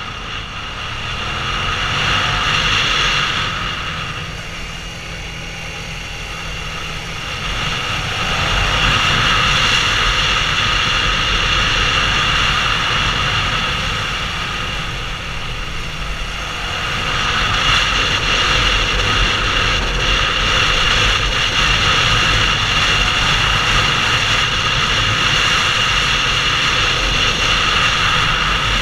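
Suzuki SV650's 645 cc V-twin engine running under way, mixed with wind rushing over a helmet-mounted microphone. It dips in level twice, around four to seven seconds in and again around fourteen to sixteen seconds, and is stronger in between and after.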